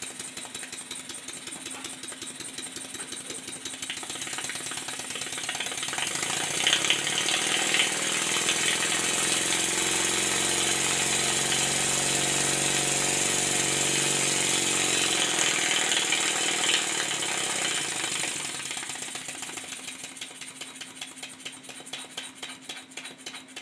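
Stuart 10H model steam engine running, its rapid exhaust beats speeding up and getting louder through the middle, then slowing and quieter near the end. It is being run in. By ear the slide valve is not in the right place relative to the ports, which leaves the timing off and the engine a little tight.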